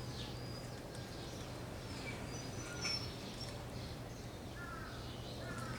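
Birds chirping now and then: short high chirps about two to three seconds in and a pair of quick falling notes near the end, over a low steady hum.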